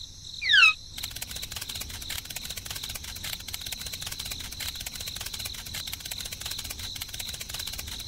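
Crickets chirring steadily, a dense fast pulsing with a high thin ring, coming in about a second in. Just before it, two quick falling chirps.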